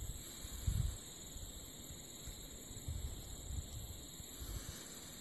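Quiet outdoor background: a steady high-pitched insect hiss, with a few soft low bumps of wind on the microphone.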